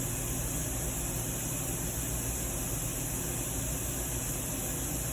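Steady background hiss over a low hum, with no distinct sound events.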